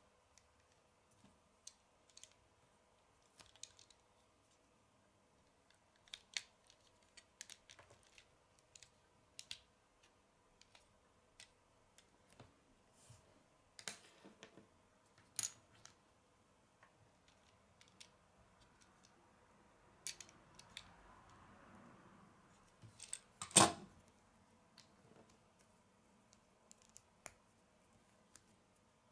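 Plastic LEGO bricks clicking as they are pressed and snapped together by hand: faint, irregular small clicks with one much louder snap about six seconds before the end.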